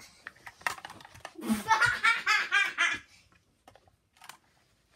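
A child laughing: a run of quick, rhythmic ha-ha pulses lasting about a second and a half, starting about a second and a half in. Light clicks and taps of toys being handled come before and after.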